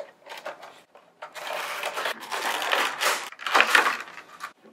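Clear plastic packaging insert and cardboard box crinkling and rustling as a vinyl Funko Pop figure is taken out of its box: a few light clicks, then a long stretch of rustling and a louder burst near the end.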